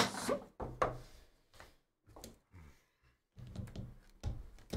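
Trading cards in hard plastic holders being handled and set down on a table: a string of short knocks and clacks at irregular spacing.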